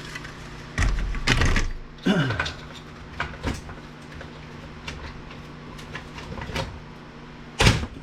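Plasma TV circuit boards being handled and moved on a work surface: a heavy thud and scrape about a second in, a few light clicks and knocks, and a sharp knock near the end.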